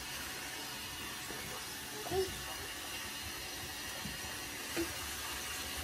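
Steady hiss of a running shower, with a brief faint voice-like sound about two seconds in.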